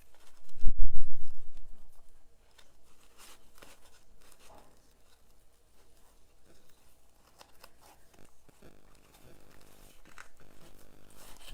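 A heavy low thump about a second in, then faint rustling and crinkling of ribbon and paper being handled while a bow is tied.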